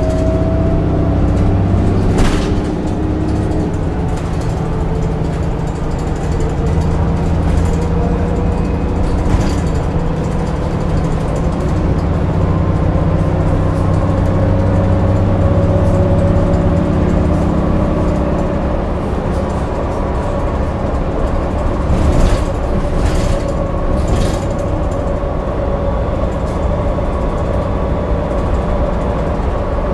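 Heuliez GX 337 city bus with a ZF automatic gearbox, heard from inside the cabin while driving. A steady engine drone with a gearbox whine that rises in pitch over the first couple of seconds and then holds, slowly climbing. A few short knocks and rattles come through.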